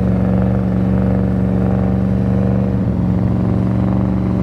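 Porsche Cayenne Turbo S's twin-turbo V8 engine running at steady revs.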